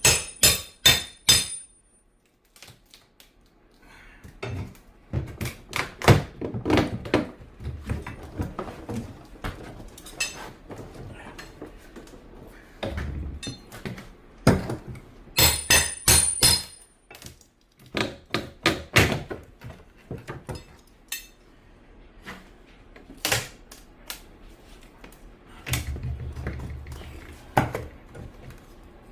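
A flat bar prying up old tongue-and-groove hardwood floorboards held down by hand-driven cut nails: repeated knocks and thunks of the bar and the loosened boards. Two quick runs of metallic clinking, one at the start and one about halfway through.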